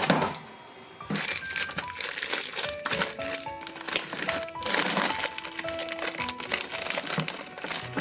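Plastic bags of frozen food crinkling and rustling as a hand rummages through a freezer drawer, over light background music that comes in about a second in.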